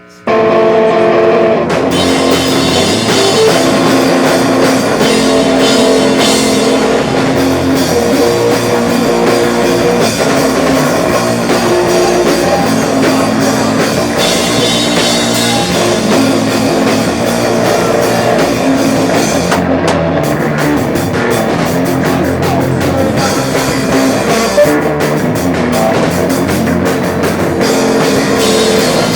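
A live rock band starts a song abruptly, a fraction of a second in, with electric guitars and drum kit playing loud and steady.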